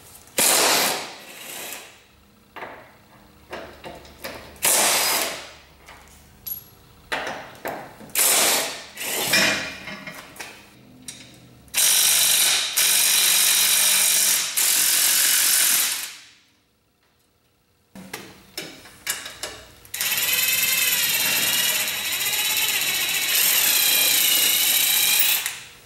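Cordless impact wrench hammering the rear trailing-arm bolts loose. It comes as several short bursts, then two long runs of about four and five seconds, its pitch wavering.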